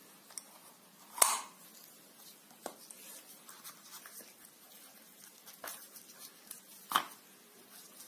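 A handful of sharp plastic clicks and knocks from handling a round self-inking stamp and its ink pad cartridge as the old pad is pushed out, the loudest about a second in and another near the end.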